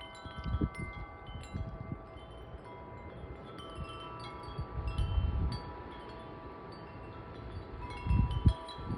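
Wind chimes ringing in strong, gusty wind: several overlapping tones struck again and again and left to ring on, with wind buffeting the microphone in uneven gusts underneath.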